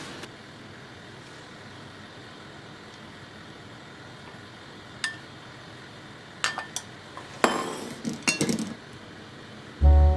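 A metal bowl clinks several times against the rim of a cast iron skillet as beaten egg is poured in, with a short rush of pouring in the middle of the clinks. Music starts just before the end.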